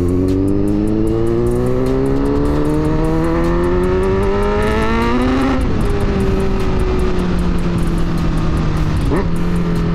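Kawasaki Z900's inline-four engine accelerating, its pitch rising steadily for about five seconds. The pitch then drops suddenly, at a gear change or as the throttle is eased off, and the engine runs on at steady lower revs.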